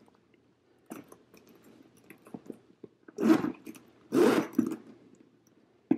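Louis Vuitton Speedy Bandoulière 25 handbag being handled: a few light clicks, then two short rasps about three seconds in as its top zipper is pulled open.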